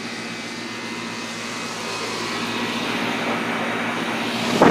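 Lennox central air conditioner condensing unit running, a steady hum from its compressor and fan, slowly growing louder. A sudden loud rushing noise breaks in right at the end.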